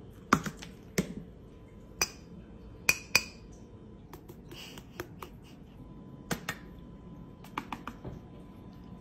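Plastic condiment bottles being handled and set down on a countertop: a series of sharp clicks and knocks, five strong ones in the first few seconds, then softer ticks.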